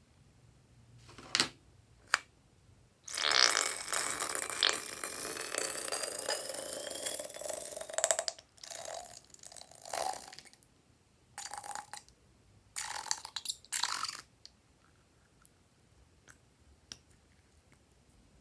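Wet, squelching sputters from squeezing and working slime and a balloon's contents. Two sharp clicks come first, then one long squelch of about five seconds with squeaky gliding pitches, then several short squelches.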